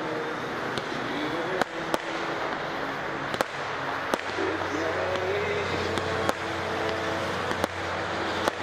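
Aerial fireworks shells bursting in a string of sharp bangs, roughly one a second at uneven intervals, over a continuous crackling haze, with people's voices underneath.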